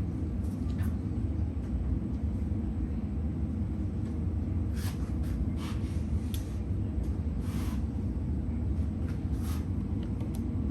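A steady low rumble throughout, with a few short scratchy rustles as the rubber screen retainer spline is pressed into the door frame's groove and the screen mesh is pulled tight.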